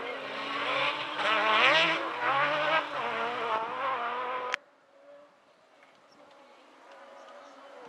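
Off-road rally car's engine revving hard, its pitch climbing and dropping through gear changes as it drives past. About four and a half seconds in the sound cuts off abruptly, leaving a faint, distant engine.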